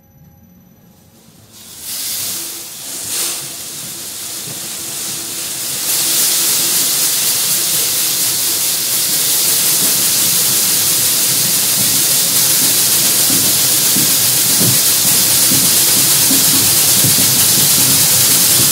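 Model bucket elevator starting on a variable-speed soft start and slowly coming up to speed: a rushing hiss of granular product with a rattling clatter as the buckets scoop it up and throw it out the discharge. The sound begins a second or two in, builds, jumps in level about six seconds in, then holds steady and loud.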